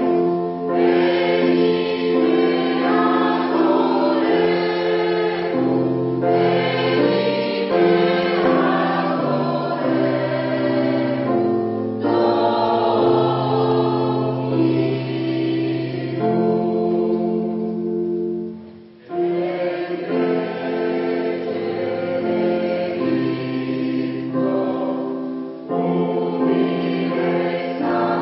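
Polyphonic choir singing held chords in several parts, with a brief break about nineteen seconds in before the singing resumes.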